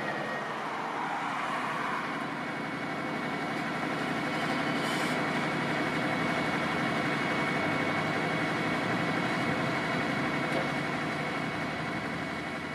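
Vredo VT3306 slurry injector's engine running steadily while the machine stands at its buffer container with the filling arm over it, with a short hiss about five seconds in.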